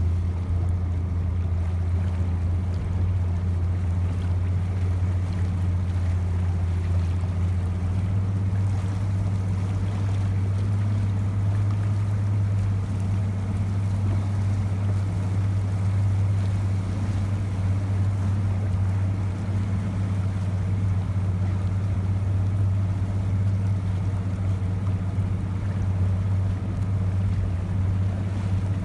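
A boat's engine running at a steady, unchanging pitch, with water and wind noise around it.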